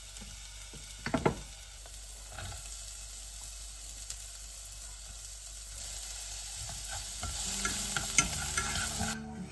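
Chopped shallots sizzling in hot oil in a saucepan, the sizzle growing louder as the pan heats. There is a knock about a second in.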